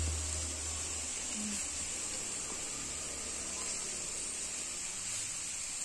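Chopped banana flower cooking in a steel pan on the stove, giving a faint, steady hiss as grated coconut is tipped in by hand. A low hum fades out about a second in.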